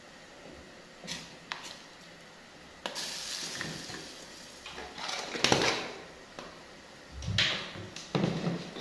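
Kitchen handling sounds at a stove: a wooden cooking stick knocking and scraping against a stainless steel saucepan, and a plastic butter tub being handled. There are a few sharp clicks early on and rustling scrapes, with the loudest knocks about five and a half and eight seconds in.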